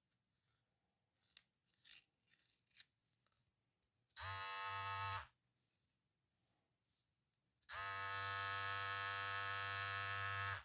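Cordless electric hair clipper buzzing: switched on for about a second, off, then on again and running steadily. Light handling clicks come before it.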